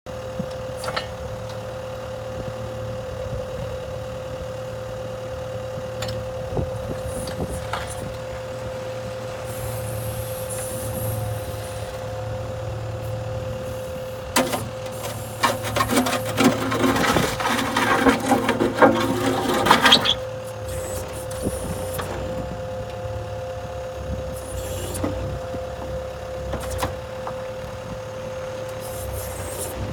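Machine with a backhoe attachment running: a steady engine hum with a constant whine. For several seconds from about halfway in, there is a louder stretch of clattering and scraping.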